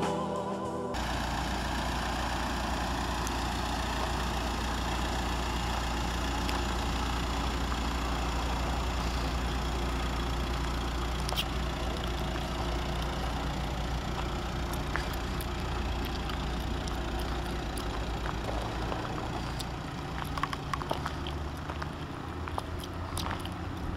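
Škoda Superb's 1.9 TDI PD four-cylinder turbodiesel idling steadily, heard from outside the car. A few light clicks come in over the last few seconds.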